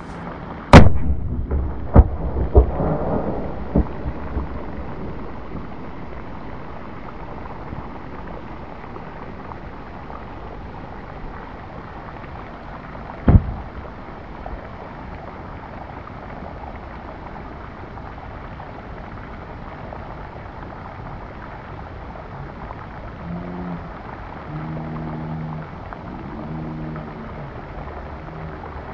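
Car airbag inflator detonating with a sharp bang, followed by several smaller cracks over the next few seconds. A second bang comes about 13 seconds in, with a steady hiss between the bangs.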